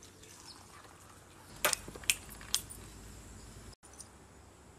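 Stainless steel tumblers and jug clinking: three sharp metal clinks in quick succession about a second and a half in, as tumblers are handled during serving.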